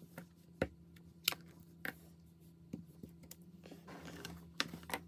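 Several short, sharp clicks and taps at irregular intervals as a rubber stamp is inked on an ink pad and pressed onto card. A faint low steady hum runs underneath.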